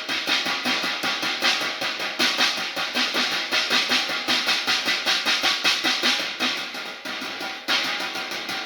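Background music with a steady, fast drum beat; it softens briefly near the end, then comes back in on a strong beat.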